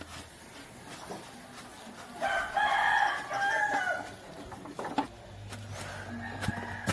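A rooster crowing: one long call about two seconds in, the loudest sound here. A few sharp knocks come near the end.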